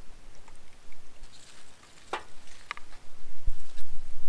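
Light clicks and rustling from hands working on a wooden cutting board as hot sauce is shaken over the fish and fresh spinach leaves are laid beside it. A low rumble grows louder near the end.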